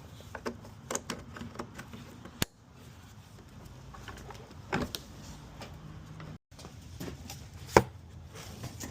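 Irregular light clicks and knocks of hard objects being handled, the loudest a single sharp knock about three-quarters of the way through. The sound cuts out completely for a moment a little past halfway.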